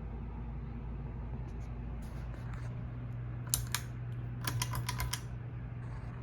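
Hunter Oakhurst II ceiling fan motor humming steadily while it turns slowly on a failing capacitor. A couple of sharp clicks come about halfway through, then a quick run of light clicks.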